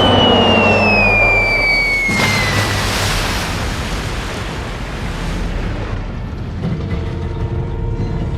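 Cartoon sound effects: a falling whistle that glides steadily down in pitch for about three seconds, then a long rumbling explosion-like crash. Near the end a steady low tone and hum come in.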